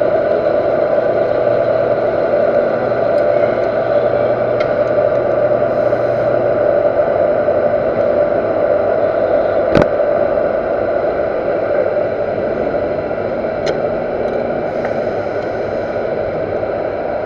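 Universal metal lathe running while a cutting tool bores the workpiece's inner diameter at a reduced feed: a steady machining noise. A single sharp click comes about ten seconds in, with a few faint ticks later.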